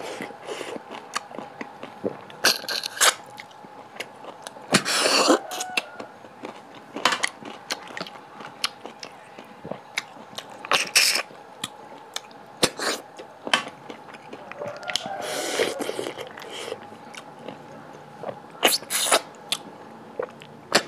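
Close-miked eating of freshwater snails cooked in curry: the meat sucked from the shells in several short, sharp slurps, between chewing and light clicks of the shells. A faint steady hum runs beneath.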